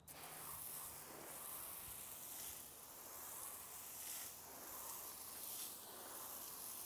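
Garden hose spraying water onto a car tire: a faint, steady hiss of spray that starts abruptly.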